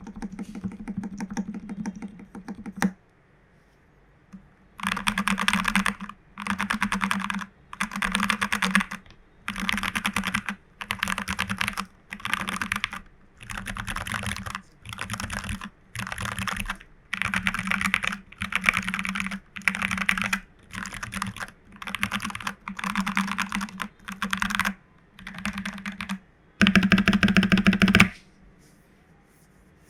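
Mechanical keyboard typing on Jwick Black v2 nylon linear switches with Cherry-profile PBT keycaps on a FEKER 84 board: fast clacking in bursts of about a second with short pauses between them. There is a brief quiet spell a few seconds in, and the last burst, near the end, is the loudest.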